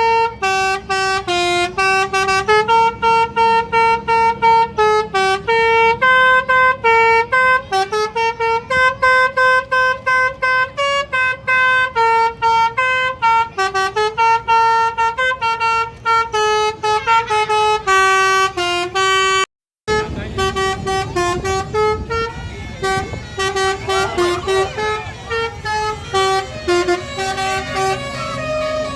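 Basuri telolet bus horn playing a fast tune of short notes that step up and down in pitch. It stops briefly about two-thirds of the way through, then the tune goes on over more background noise. A low rising tone joins near the end.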